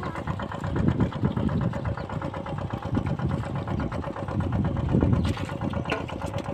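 Small engine running steadily with an even beat: the engine of the pump draining the field.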